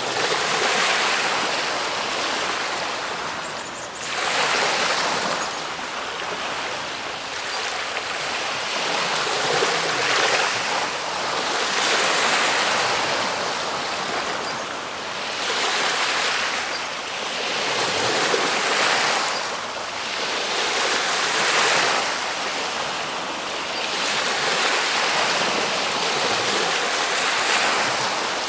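Ocean waves breaking and washing in: a continuous rush of surf that swells and eases every two to four seconds.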